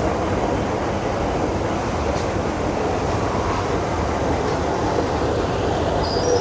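Steady low rumbling background noise with no distinct events. A short high chirp comes near the end.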